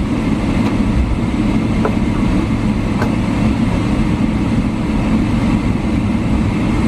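Steady low rumble and engine noise of a Boeing 777-300 airliner heard inside the passenger cabin as it rolls along the ground after landing.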